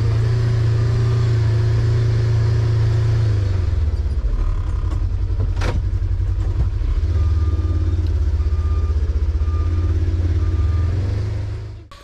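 Engine of a farm utility vehicle (side-by-side) running, heard from inside its enclosed cab. The engine eases off about four seconds in and picks up again a few seconds later. A warning beeper sounds short, evenly spaced beeps in the second half, and there is a single sharp click near the middle.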